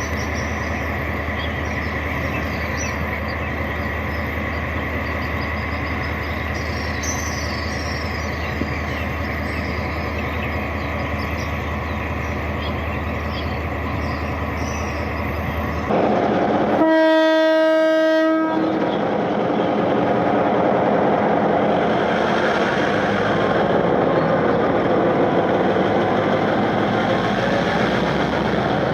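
Sound unit of an HO-scale model of an R100 diesel-electric locomotive playing its engine idling steadily, then one horn blast of about a second and a half some seventeen seconds in. After the horn the engine sound rises and runs louder and rougher, as if the locomotive is powering up.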